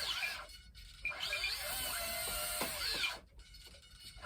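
The small twin electric motors of an E-flite UMX Twin Otter RC plane spin their propellers up and down, a whine that rises and falls in pitch. It comes in a short burst at the start, then runs for about two seconds from a second in and stops suddenly. The plane has no rudder and steers by differential thrust.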